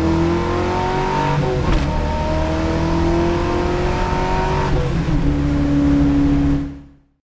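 A car engine accelerating through the gears. Its pitch climbs, drops sharply at an upshift twice, holds steady after the last shift, and then fades out near the end.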